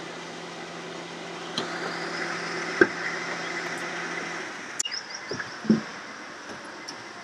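Car-interior handling sounds as the driver gets ready to step out: a sharp click about three seconds in as the seat belt is released, with rustling of clothes. A low steady hum cuts off about four and a half seconds in, followed by another click and a couple of soft thumps as he shifts toward the door.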